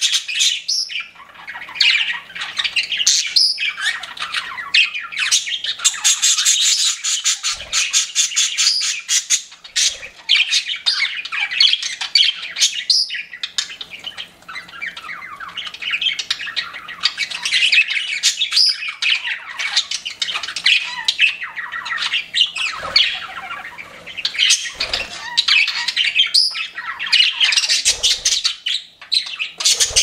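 A group of pet budgerigars chirping and chattering without a break, many calls overlapping, with a run of rapid ticking notes a few seconds in.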